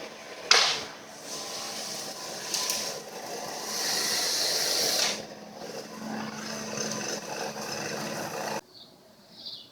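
Chainsaw running with repeated hissing surges as it works, then cutting off abruptly near the end.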